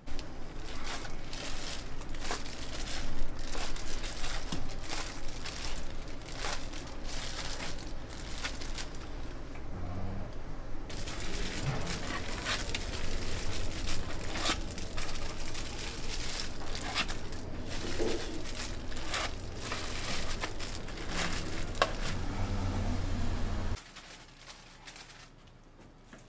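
Plastic packaging rustling and crinkling, with many small clicks and knocks of handling, stopping abruptly near the end.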